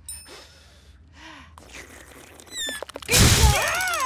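A cartoon voice: faint breaths and a short falling whistle effect, then about three seconds in a loud wavering cry as the chili-spiked soup burns his mouth.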